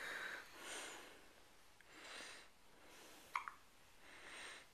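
A baby's hiccup: one short, sharp squeak a little past three seconds in, between faint, slow breaths.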